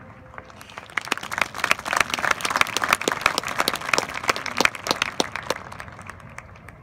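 Audience applause: many hands clapping, starting about half a second in, swelling, then thinning out and dying away near the end.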